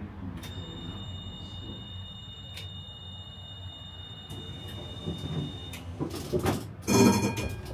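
Vario LF2R.E tram running with a low steady rumble, while a high steady squeal holds for about five seconds. A loud ringing tone starts near the end.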